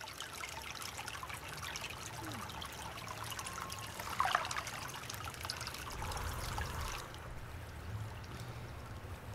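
Bath water trickling and splashing in a foam-filled tub, with one louder splash about four seconds in. The fine trickling stops about seven seconds in.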